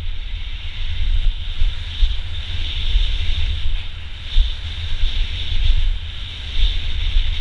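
Wind buffeting the microphone of a camera on a mountain bike riding fast down a dirt downhill trail. A steady hiss from the tyres and bike rolling over the dirt runs over a gusty low rumble.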